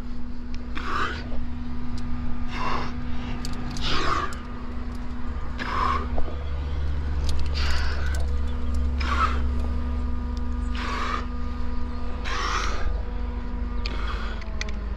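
A rock climber's heavy breathing while climbing, one loud breath about every one and a half to two seconds, over a low steady rumble.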